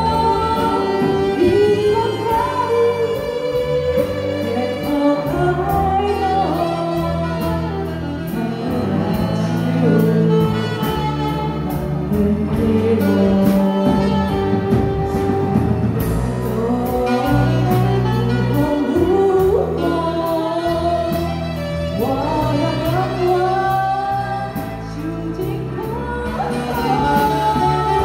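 A woman singing a ballad into a handheld microphone, backed by a small live band of drum kit, electric guitars and keyboard, with a steady cymbal beat.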